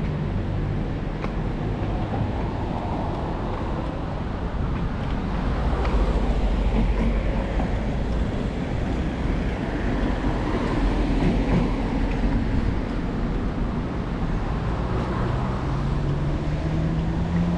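Road traffic on a city street: steady low rumble and tyre noise from passing vehicles. Near the end a vehicle's engine note rises as it speeds up.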